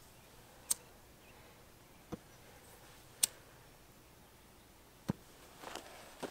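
Four sharp, isolated clicks, a second or two apart, at a steel campground fire ring where a small fire of paper towels and shop rags is catching. Softer footsteps on dry ground come near the end.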